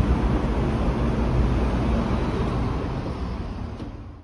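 Steady outdoor street noise with a deep rumble, like passing traffic and wind on the microphone. It fades out over the last second.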